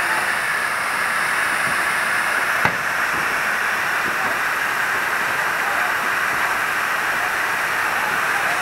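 Fire hose spraying water at a burning wooden shack, a loud steady rushing hiss with one sharp click a little under three seconds in.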